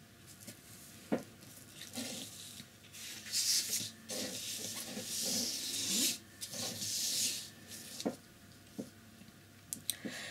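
Swishing handling noise for several seconds in the middle, with a few light knocks before and after, from the painter working at the table with her brush and paper.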